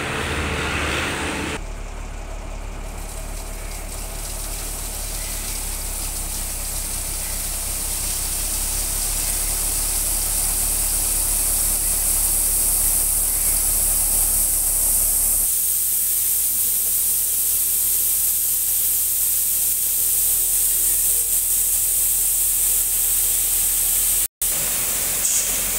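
Crushed stone pouring out of a tipper truck's raised bed: a steady rushing hiss of sliding gravel that grows louder over the first ten seconds or so, over the low steady running of the truck's engine. It cuts out for an instant near the end.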